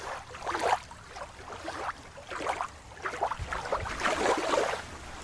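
Water sloshing and splashing in a run of short swishes as a toy is moved through it.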